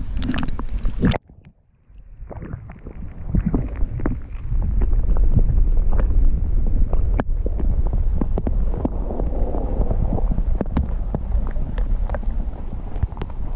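River water heard with the microphone underwater: a low, muffled churning with many small clicks and knocks. It sets in about two seconds in, after a brief near-silent gap.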